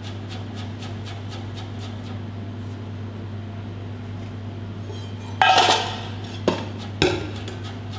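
Stainless steel kitchen pans clanking as they are handled: one loud ringing clang about five and a half seconds in, then two shorter clanks. A steady low hum runs underneath.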